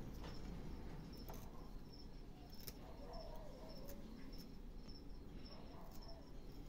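Small carving knife cutting and scraping a block of wood by hand, a few faint sharp cuts. A cricket chirps behind it in an even run of short high chirps.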